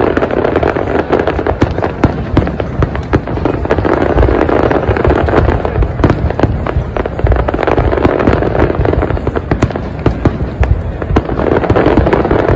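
Aerial fireworks shells bursting in a dense barrage: many bangs and crackles close together, with hardly a gap between them.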